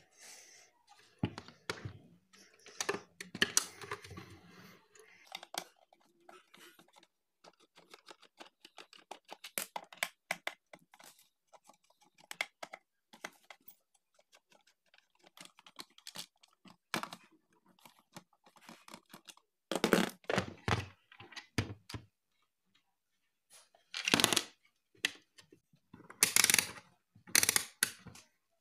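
Scattered clicks, knocks and scrapes of a screwdriver and the plastic housing of a Lifelong mixer grinder being handled and unscrewed as it is taken apart, with louder clusters of knocks in the second half.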